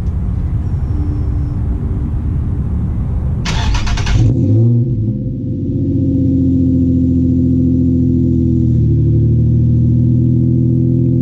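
Nissan 350Z's 3.5-litre V6 cold-started through test pipes in place of the catalytic converters, with the exhaust almost straight piped. A low rumble comes first, then a short burst of starter cranking a little under four seconds in; the engine catches with a rev flare and settles into a loud, steady fast idle.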